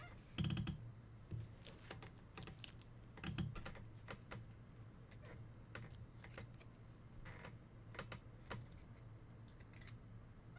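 Trading cards being handled and set down on a table: scattered soft clicks and taps, louder ones near the start and about three and a half seconds in, over a faint steady low hum.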